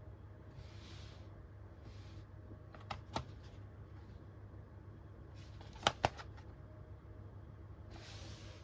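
Plastic DVD case being handled: soft rustling slides, a couple of light clicks about three seconds in, and a sharper double snap about six seconds in, over a steady low hum.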